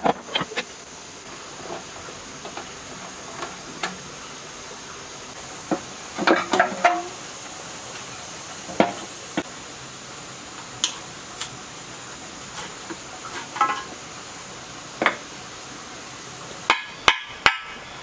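Scattered metallic clinks and clanks of a wrench and loose metal parts as an old five-horsepower diesel engine is taken apart, with a cluster of knocks about six seconds in and another near the end, over a steady faint high hiss.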